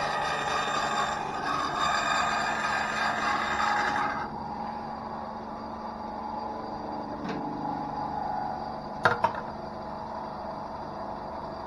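Einhell TC-SB 200/1 benchtop bandsaw cutting thin plywood. The cut ends about four seconds in, and the saw keeps running with no load. A sharp knock comes about seven seconds in and a louder double knock near nine seconds.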